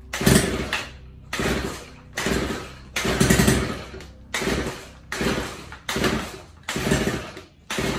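Stihl KM 90 R kombi engine being pull-started about nine times in quick succession. Each pull brings a short burst of engine sound that fades straight away. The engine won't stay running, which the owner puts down to an idle set too low.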